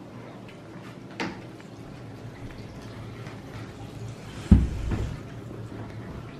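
Kitchen handling knocks: a short click about a second in, then a louder dull thud a few seconds later as a plastic water jug and cup are handled at the counter.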